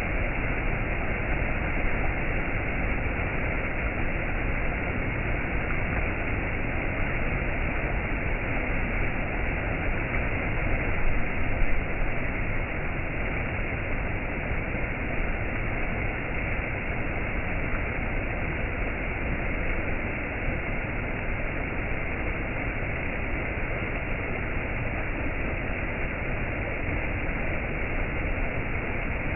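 Waterfall: a steady, unbroken rush of falling water with a muffled, bass-heavy tone and no high hiss. It swells briefly about eleven seconds in.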